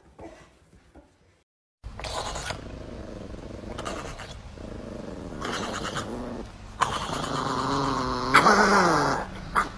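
A chihuahua growling and grumbling in long, wavering vocalizations that start about two seconds in and grow louder in the last few seconds.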